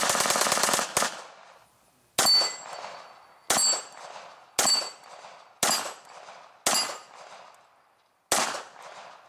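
A 9x18mm Makarov-calibre pistol firing outdoors: a fast string of shots that stops about a second in, then six single shots about a second apart. Each shot has a short high ringing after it.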